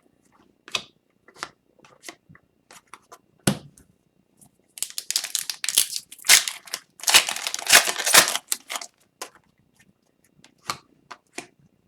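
Retail hockey card pack wrapper being torn open and crinkled, in two dense rustling stretches in the middle, with light taps and clicks of cards being handled before and after.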